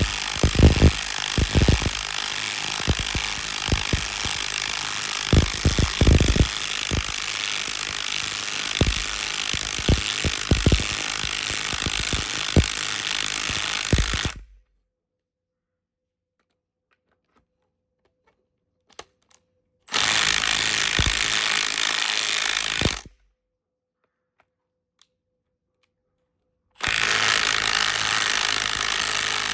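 Milwaukee M12 Fuel compact 1/2-inch cordless impact wrench hammering in three runs: a long one of about fourteen seconds with heavy knocks in its first half, a short one of about three seconds after a pause, and another starting near the end.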